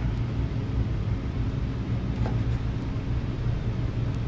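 Steady low hum and rumble of background machinery, with one faint tap about two seconds in.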